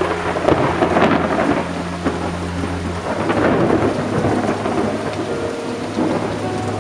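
Steady rain with a crackling peal of thunder rumbling through it, loudest about a second in and again around three and a half seconds in.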